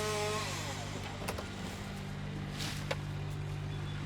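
Engine of the vehicle towing the trailer running steadily at a low, even hum, with a few faint clicks and knocks.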